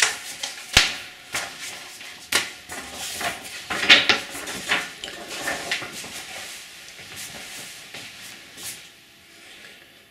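A series of irregular knocks, clicks and rustles from objects being handled, sharpest in the first few seconds, then thinning out and fading near the end.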